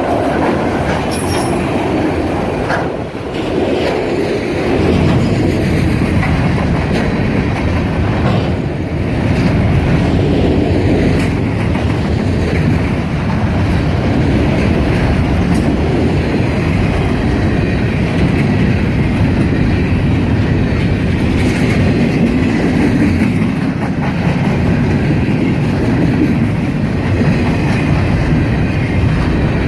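Norfolk Southern freight train rolling past at trackside, a steady loud rumble of cars and wheels on the rails.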